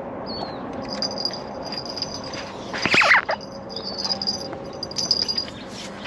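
A single short, loud animal call about halfway through, over a steady outdoor background with a few faint bird chirps and a thin high tone.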